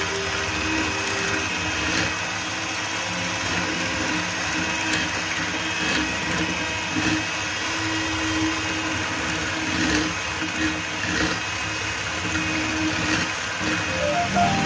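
Electric hand mixer running steadily at high speed, its beaters whipping a liquid mixture in a plastic bowl toward soft peaks. A short run of rising musical notes comes in near the end.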